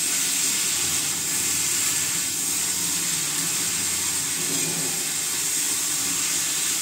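Potatoes and cauliflower frying in spiced oil in a wok over a gas burner: a steady sizzling hiss.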